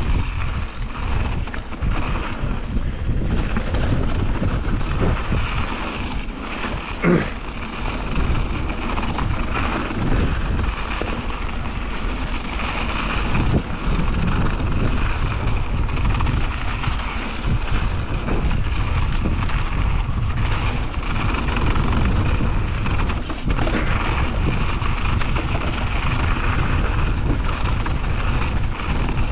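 A mountain bike descending a dirt flow trail at speed: wind rushing over the action camera's microphone and tyres rolling on the trail surface. A short, louder sound comes about seven seconds in.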